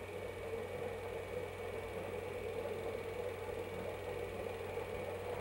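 Steady mechanical hum and whir, a constant background that does not change.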